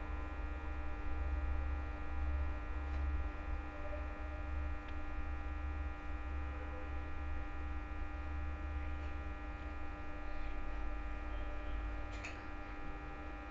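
Steady electrical mains hum, a low buzz that holds unchanged throughout.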